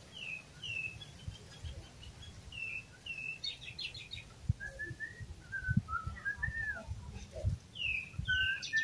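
Several birds calling: short down-slurred whistled notes repeated every second or so, a quick stuttering trill a few seconds in, and lower chirps in the middle. Scattered soft low thumps sit underneath.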